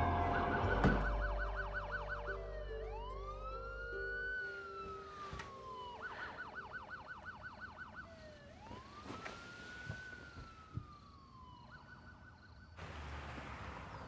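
Police siren alternating between a fast yelp and a slow wail that rises and falls, gradually fading away. A sharp knock sounds about a second in, and near the end the siren stops, leaving a steady hiss.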